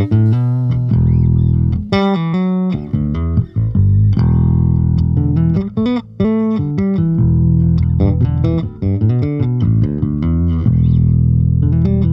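Electric bass guitar playing a fast melodic instrumental line, the notes changing quickly over strong sustained low notes, with a few brief breaks between phrases.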